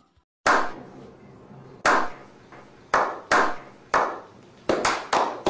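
Slow clap by a small group of men clapping together: single echoing claps about a second apart at first, speeding up to several a second near the end.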